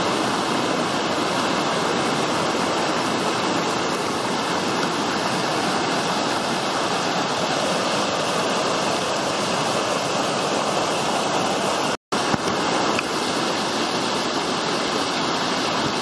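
Fast-flowing rocky stream rushing and splashing over boulders in white-water rapids below Liffey Falls, a steady loud rush of water. It cuts out for an instant about twelve seconds in.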